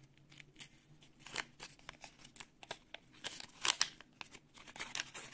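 Hand-made paper surprise packet being unfolded and pulled open: paper crinkling and rustling in short, irregular crackles, a few sharper ones about halfway through.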